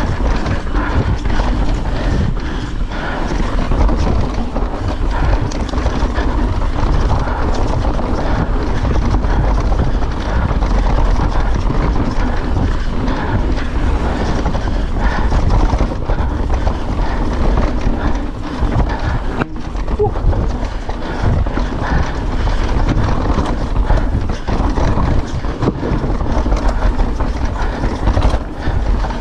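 YT Decoy e-mountain bike ridden fast down a flowing, rooty dirt trail: tyres rolling over dirt and roots, the bike rattling and clattering, and wind rushing over the microphone.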